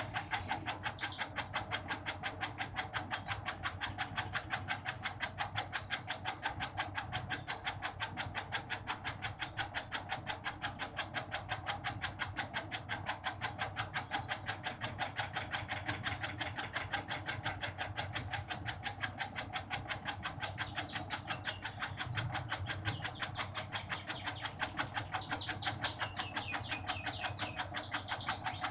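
Motorised tobacco shredding machine running fast, its cutter chopping in a rapid, even rhythm of sharp clicks.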